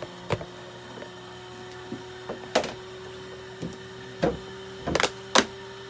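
Handling noises on a stainless-steel exam table during a cat's treatment: a handful of sharp clicks and knocks, the loudest two close together near the end, over a steady low hum.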